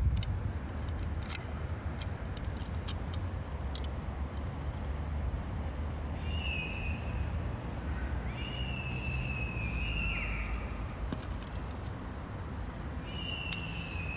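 Car shock absorber squeaking: three drawn-out high squeals, each a second or two long and falling slightly in pitch, over a steady low rumble of the car. A few sharp clicks sound in the first few seconds.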